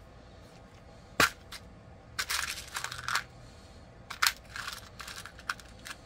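Hands searching through small bead-making supplies: a sharp click about a second in, then two spells of crinkly rustling and a couple of small clicks near the end.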